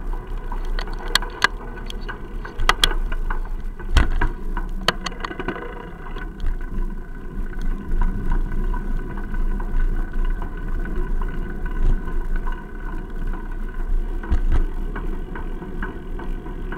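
A bicycle ride heard through an action camera's waterproof case mounted on the bike: a steady low rumble with frequent clicks and knocks as the camera jolts over bumps, the loudest knock about four seconds in. A faint steady hum of several pitches runs underneath.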